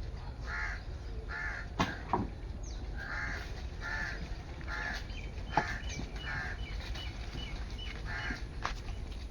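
A bird calling over and over, about once a second, each call short and harsh. Three sharp clicks stand out about two seconds in and again just past the middle, and a run of quick high chirps comes through in the second half.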